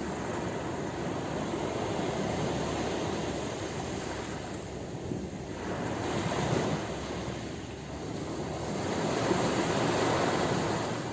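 Ocean surf: waves breaking and washing in, the rushing noise swelling and ebbing three times.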